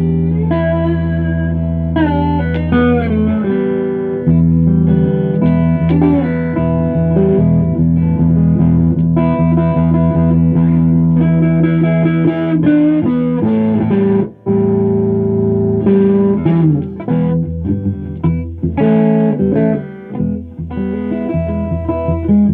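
Electric guitar played solo with held notes and changing chords, with one brief break about fourteen seconds in.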